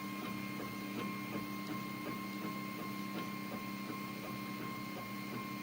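Anet A8 3D printer running a print: its motors whine in several steady tones, with a scatter of faint small ticks from the moving print head and frame.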